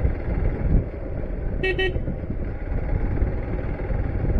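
Hero Xpulse 200 4V single-cylinder motorcycle being ridden, its engine and wind on the microphone making a steady low rumble. A vehicle horn toots briefly about one and a half seconds in.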